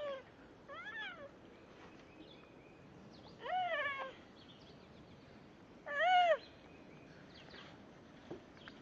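An animal's calls, four in all, each rising and then falling in pitch; the third and fourth are the longest, and the fourth is the loudest.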